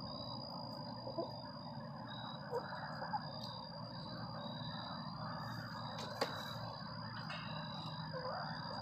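A backyard chicken flock (young Easter Egger and Speckled Sussex hens with a rooster) giving a few soft, short calls, over a steady high thin trill and a constant low hiss. A sharp click comes about six seconds in.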